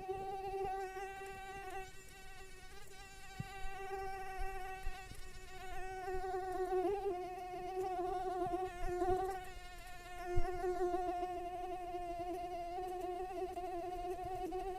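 Mosquito in flight: its wings make a continuous high whine that wavers slightly in pitch and rises and falls in loudness. There is a brief click about ten seconds in.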